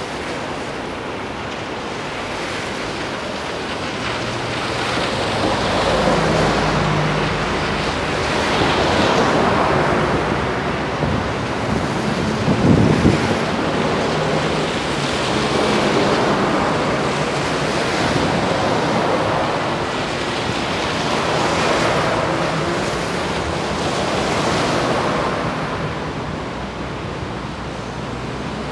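City buses and traffic passing on a wet avenue: tyres hissing on the soaked road in repeated swells as each vehicle goes by, under the low hum of bus engines. The loudest pass comes about 13 seconds in, as a bus goes by close.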